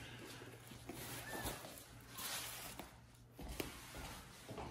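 Faint rustling of disposable pads in a plastic tub as a baby monkey and small kittens shift about, with a few light taps and a brief faint squeak about a second in.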